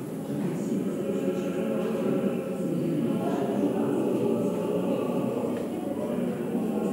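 A choir singing a slow, steady chant.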